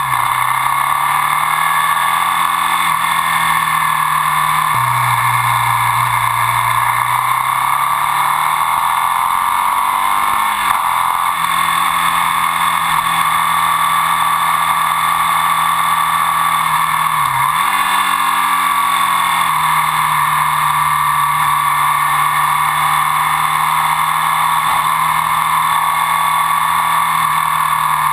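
Ducati Sport 1000 Sportclassic's air-cooled L-twin engine running at road speed, its pitch dipping and picking up again a few times as gears are changed, over steady wind and road noise.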